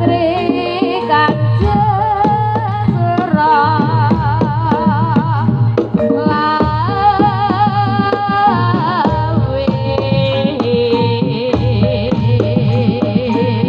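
Live Javanese gamelan music for a jaranan dance: quick drum strokes and a steady low hum under a melody line with heavy vibrato.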